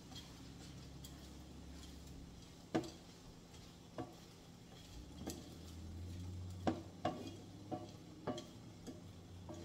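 A spoon stirring lentils and vegetables in a cooking pot, with irregular clinks of the spoon against the pot, some of them ringing briefly.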